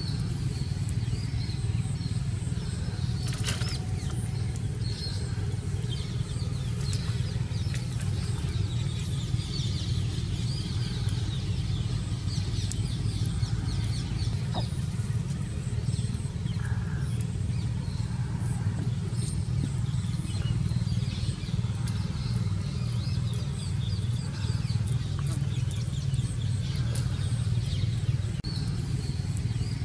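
Steady low rumble with short faint high chirps scattered through it.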